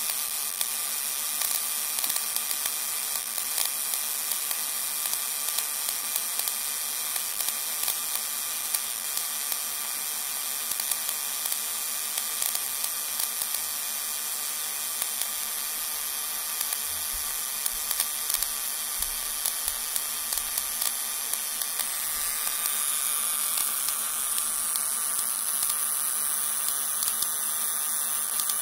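High-voltage corona discharge in a homemade ozone generator: a steady electrical hiss with several fixed high tones and irregular sharp crackles. About 22 seconds in the sound gets slightly louder and brighter.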